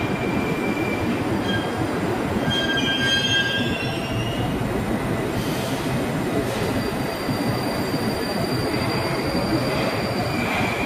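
Moscow Metro train running alongside the platform: a steady low rumble of wheels and running gear, with thin high-pitched wheel squeals that come and go.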